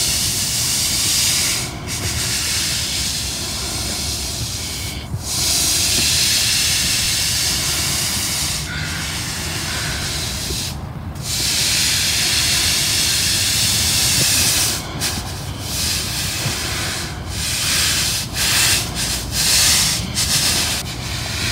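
Push broom scrubbing wet, soapy asphalt to work oil remover into a gasoline spill: a hissing scrape in long strokes with brief breaks between them, the strokes getting shorter and quicker near the end.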